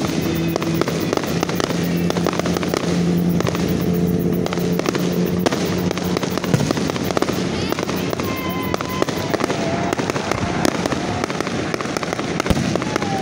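Fireworks display: aerial shells bursting in a rapid, continuous string of bangs, pops and crackles.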